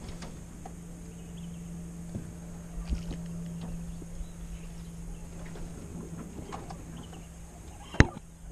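Spinning reel being cranked as a hooked bass is reeled in: scattered light clicks over a steady low hum, with one sharp knock near the end.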